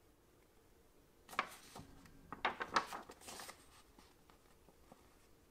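Loose paper instruction sheets rustling and crackling as they are shuffled and leafed through by hand, a run of rustles starting about a second in and lasting about two seconds.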